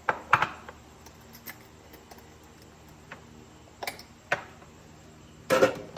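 Kitchen clatter: a few sharp knocks and clicks of things being handled and set down. There are two near the start, two more about four seconds in, and a louder clatter near the end.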